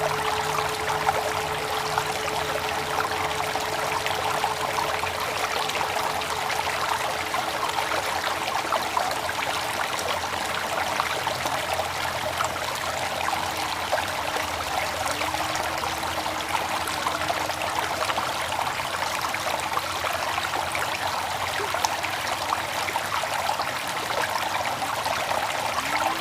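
Water flowing steadily in a stream. The ringing of a mindfulness bell fades away over the first few seconds.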